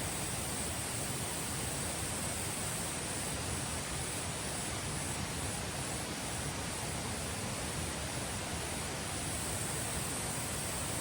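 Steady rush of a mountain valley stream, with insects chirring in an unbroken high band above it.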